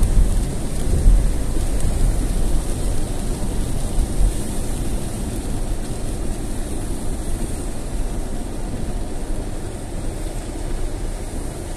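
Steady low rumble inside a moving car on a rain-soaked road: tyre and road noise mixed with rain, easing gradually over the last few seconds.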